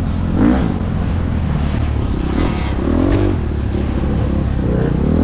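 Husqvarna FX 350 four-stroke single-cylinder dirt bike engine being ridden hard, its pitch swelling up with the throttle about half a second in, around three seconds, and again near the end.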